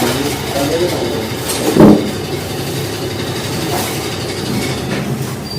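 Bajaj Pulsar 150 single-cylinder engine running steadily, with one short loud knock about two seconds in.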